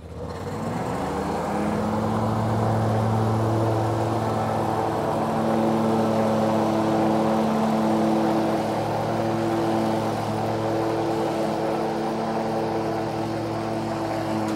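Yakta YXR710 zero-turn riding mower's engine speeding up in about the first second, then running steadily at high throttle as the mower drives across the grass.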